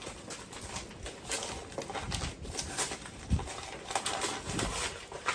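Rustling and crinkling of packaging as a box is opened by hand, with a few sharp knocks; one low thump comes about three seconds in.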